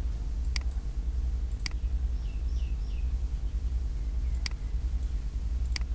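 Computer mouse clicking four times, single sharp clicks a second or more apart, over a steady low electrical hum. A few faint high chirps about two seconds in.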